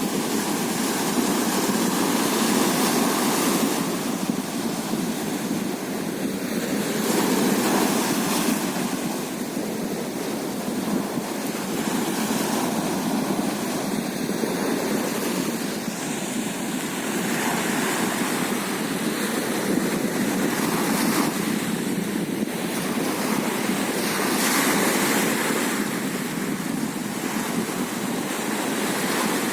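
Sea surf washing onto the shore, a continuous rushing noise that swells and eases every few seconds as waves break, with some wind.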